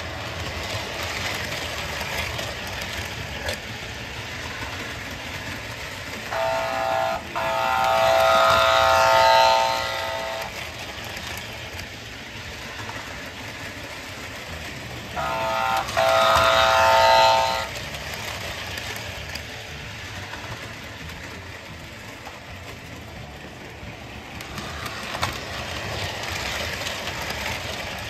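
American Flyer S-gauge toy trains running on the layout track with a steady rail and motor noise. A pitched toy-train whistle sounds twice over it, first for about four seconds and then for about two and a half.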